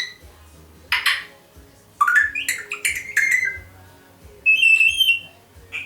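African grey parrot calling: short harsh squawks at the start and about a second in, then a quick run of chirps and gliding whistled notes, and one held whistle about four and a half seconds in.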